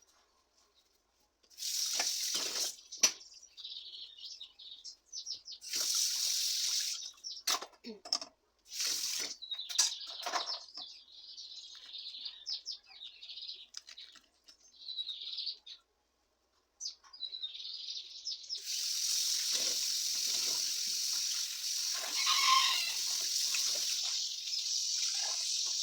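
Water running from a tap into a sink. It comes in short on-and-off bursts at first and runs steadily from a little past the middle on.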